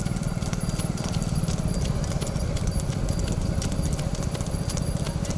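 Several motorcycles running slowly in a close group, a dense low engine putter, with irregular light clicks over it.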